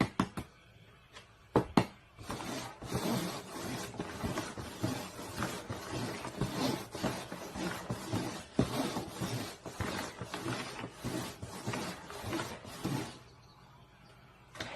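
A dog whining and crying excitedly for about eleven seconds, ending abruptly, after two or three sharp clicks in the first couple of seconds.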